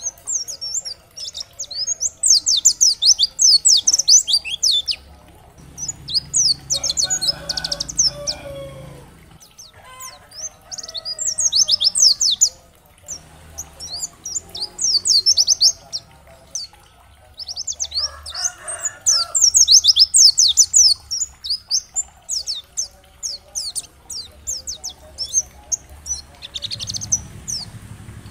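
White-eye (pleci) singing: rapid, high twittering chirp phrases in bursts of a few seconds, with short pauses between them.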